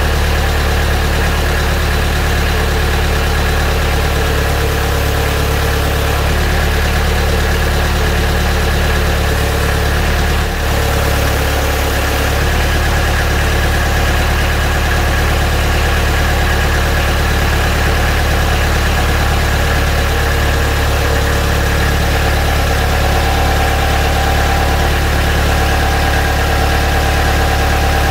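Kubota B3150SU compact tractor's diesel engine idling steadily, with a brief dip in level about ten and a half seconds in.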